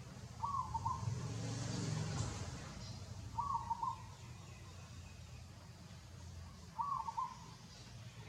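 A bird calling three times at even intervals of about three seconds, each call a brief phrase of two or three quick notes, over a low background rumble.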